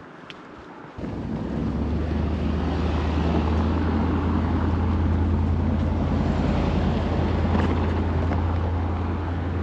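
A loud, steady, low engine-like drone that starts abruptly about a second in and cuts off abruptly at the end.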